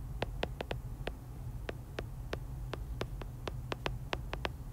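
Stylus tip tapping and clicking on a tablet's glass screen during handwriting: a quick, irregular run of sharp clicks, a few each second, over a low steady hum.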